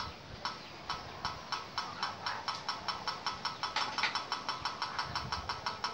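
A small 8 hp diesel engine driving a crop-grinding mill, running with a rhythmic ticking knock. The beat is sparse at first and quickens to about five a second by the end.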